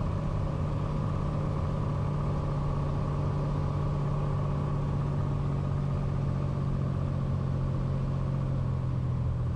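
Steady drone of a Cessna Turbo 182 Skylane's turbocharged six-cylinder engine and propeller at reduced power on final approach to land.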